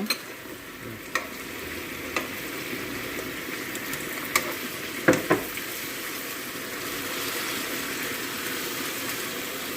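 Food frying in a pan over a very high flame: a steady sizzle, with a few light utensil clicks as it is stirred.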